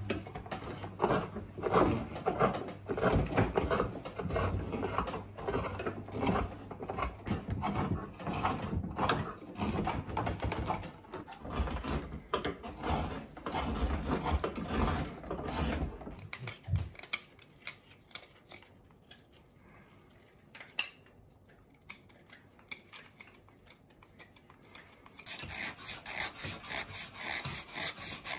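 Gouges and carving knives scraping and shaving cherry (Somei Yoshino) wood in rapid, repeated short strokes while spoons are carved. The strokes drop away to a quiet stretch a little past the middle, broken by one sharp click, and start up again near the end with a brighter, raspier edge.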